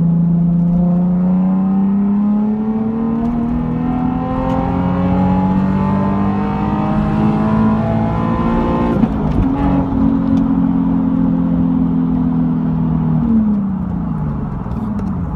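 Nissan 370Z's V6 sounding through a Tomei Expreme catback exhaust (stock catalytic converters still fitted), its note rising slowly under acceleration. A short break comes about nine seconds in, then it holds a steady higher note and falls away as the revs drop near the end.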